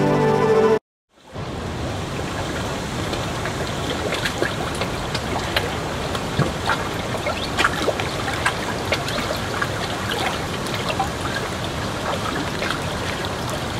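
Background music cuts off under a second in. After a short gap comes river water rushing over rock ledges in small falls: a steady rush dotted with many sharp little splashes.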